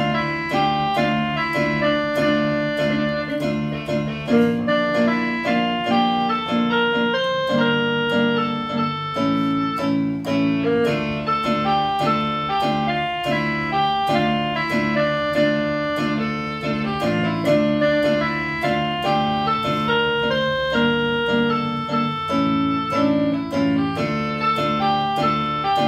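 Portable electronic keyboard played with a piano-like voice. A melody of single notes moves over repeated chords held lower down.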